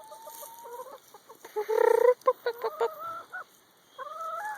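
Young hens (five-month-old pullets, not yet laying) clucking and calling: a long slightly rising call at the start, a loud squawk about a second and a half in, then short choppy clucks, and another wavering call near the end.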